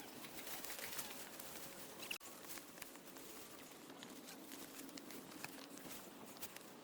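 Faint outdoor trail ambience with scattered light clicks and rustles.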